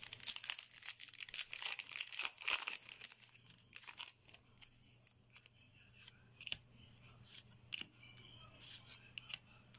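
Yu-Gi-Oh trading cards being handled and flipped through, sliding and snapping against each other. Quick dense clicks and rustles come in the first three seconds, then sparser single snaps.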